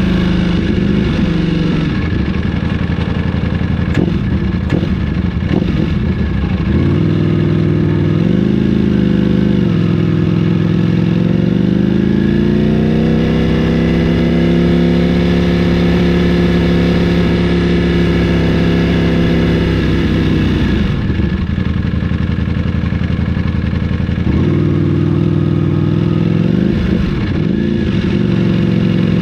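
Ducati Panigale V4's Desmosedici Stradale V4 engine running under throttle. After a short blip about seven seconds in, it climbs in pitch and holds a high steady note for about six seconds, then drops back sharply near two-thirds of the way through.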